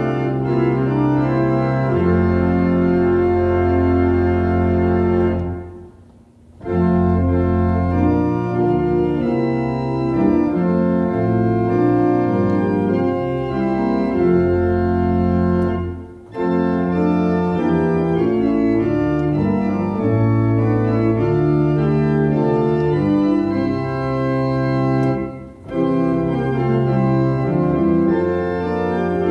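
Church organ playing a hymn tune in full sustained chords over a held bass line, with short breaks between phrases about six, sixteen and twenty-five seconds in.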